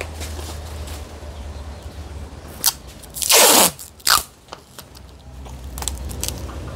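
Crunching, scraping handling noise as a potted yellow apricot (mai vàng) bonsai is lifted and set in place. It is loudest in one burst of about half a second, a little past three seconds in, with a few sharp clicks just before and after it, over a steady low hum.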